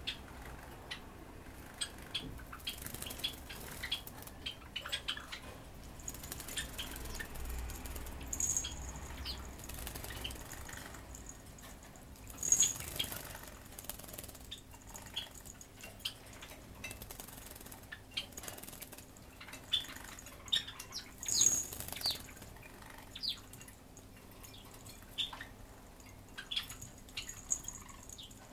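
Java sparrow splashing and flicking water in its bath dish, then shaking its feathers dry on a swing, which jingles the small metal bell hanging from it. The bell gives short high rings several times, with the bird's small splashes and flutters in between.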